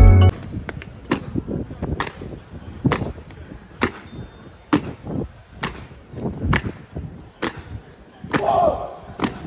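Marching soldiers' boots stamping in unison on stone paving, one sharp stamp about every second, as an honour guard high-steps in the changing of the guard.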